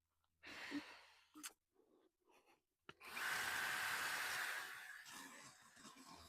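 A Hyper Tough power tool's motor is triggered with a click about three seconds in, runs steadily for about a second and a half, then winds down. Before it come a few short breathy sounds.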